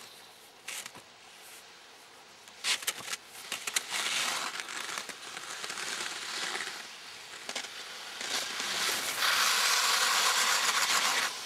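Skis scraping and hissing over packed snow, building to its loudest near the end as a skier carves close by, with a few sharp clicks and knocks about three seconds in.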